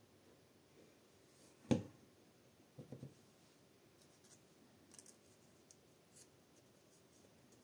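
A small white dish set down on a wooden desk with one sharp knock a little under two seconds in, followed by a few softer knocks about a second later. Then faint light ticks and rustles as dried pressed petals and paper are handled on the journal page.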